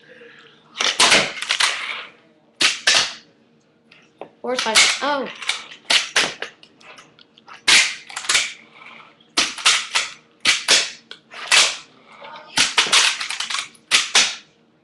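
Handboard deck and wheels clacking on a hard surface as tricks are popped and landed: an irregular string of sharp slaps and taps, about fifteen, some in quick pairs.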